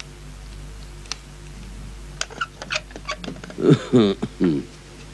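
A cat meowing a few times in quick succession over a low steady hum, after a few soft clicks.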